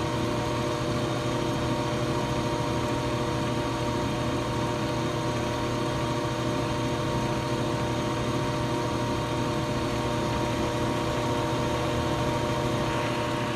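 Ammco 4000E brake lathe running, its spindle turning at the middle speed while the electronic automatic feed, at its highest setting, slowly moves the spindle outward. A steady machine hum with several held tones that does not change.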